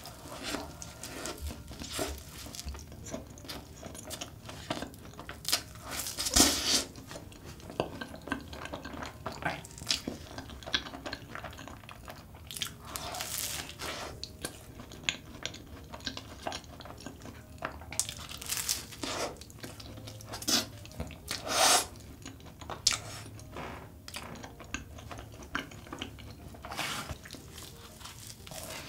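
Close-miked eating: biting into and chewing large custard-filled cream puffs topped with Nutella chocolate. Short mouth sounds come irregularly, with a few louder bites about 6, 13, 19 and 22 seconds in.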